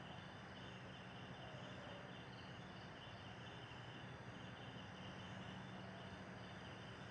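Faint fading tail of a rough ambient chord loop: a low steady drone under hiss, with a high fluttering band above it.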